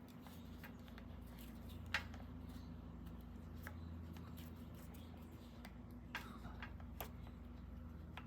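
Scattered light clicks and taps of hand work on a motorcycle's front brake cable and its inline adjuster, the sharpest about two seconds in, over a steady low hum.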